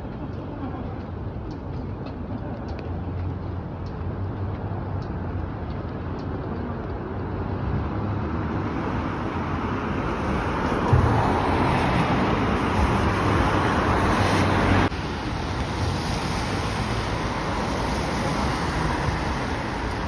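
Storm wind rushing and buffeting the microphone, a steady noisy roar with deep rumble. It swells from about eight seconds in and drops suddenly about fifteen seconds in.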